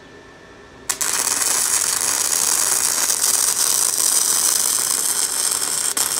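Wire-feed (MIG-gun) welding arc crackling steadily as a bead is laid to fill the joint of a shortened steel shift lever; the arc strikes suddenly about a second in and stops near the end.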